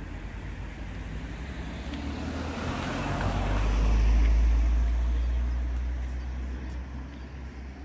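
A motor vehicle passing by: a rushing sound with a low rumble that swells to a peak about halfway through, then fades away.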